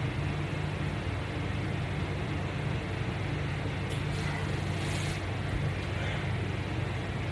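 Steady low mechanical hum of background room noise, with a couple of faint soft ticks about four and five seconds in.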